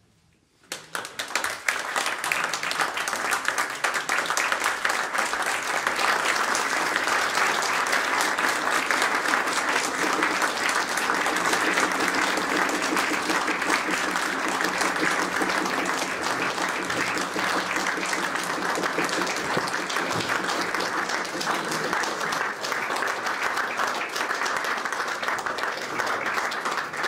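Audience applauding: the clapping starts suddenly about a second in, out of near silence, and continues steadily at full strength.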